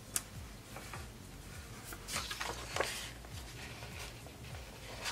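Paper rustling as loose planner pages are handled and slid across a table, with a sharp click shortly after the start and a louder rustle around the middle.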